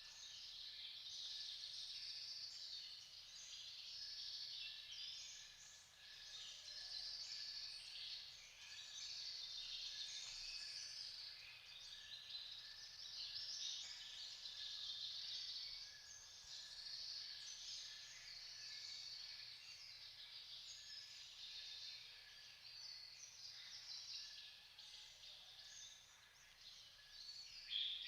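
Morning chorus of many songbirds chirping and singing over one another, unbroken and faint, with a thin steady high tone underneath.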